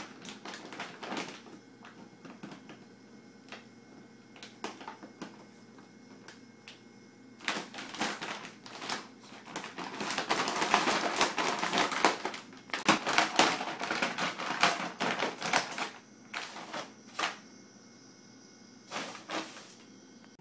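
A puppy pawing and nosing at a stiff plastic dog-food bag on a tile floor, the bag crinkling and crackling in irregular bursts. The bursts are loudest and densest in the middle stretch, with a few more near the end.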